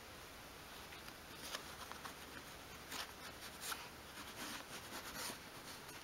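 Flat-bladed screwdriver scratching and digging lightly into thin craft wood, a few faint short scrapes, distressing the wood to make it look old and worn.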